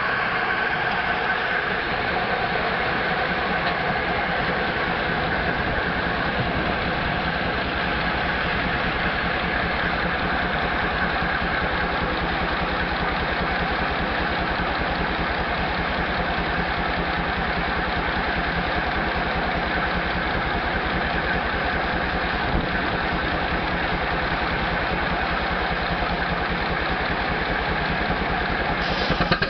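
Frick steam engine running steadily while powering a sawmill, with a fast, even beat and a steady mechanical din.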